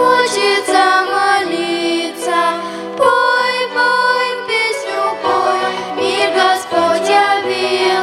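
Ensemble performing a Christmas song: singing with children's violins, a steady run of sustained melodic notes, some with vibrato.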